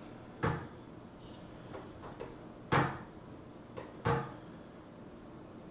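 Plastic clicks and knocks as an LCD glass panel is pushed and seated into a digital gauge cluster's plastic housing: three sharp knocks, about half a second, just under three seconds and about four seconds in, with a few faint clicks between.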